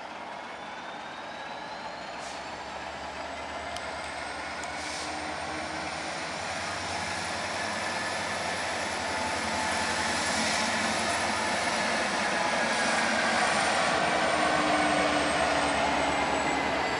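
GM 1060 diesel-electric locomotive running light along the track, its diesel engine and wheels getting steadily louder as it approaches and passes close by, loudest near the end.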